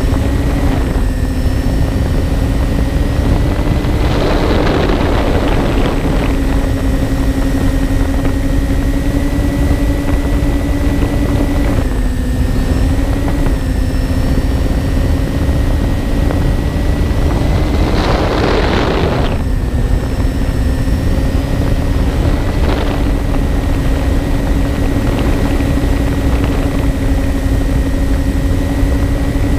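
Twin electric motors and propellers of a MyTwinDream FPV plane in cruise, heard from its onboard camera. A steady hum runs with a low rush of wind over the microphone. The pitch dips slightly twice, and twice the rushing grows louder for a second or two.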